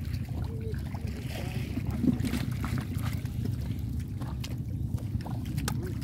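Small splashes and clicks from a fine-mesh net full of small fish being dragged through shallow muddy water, over a steady low rumble.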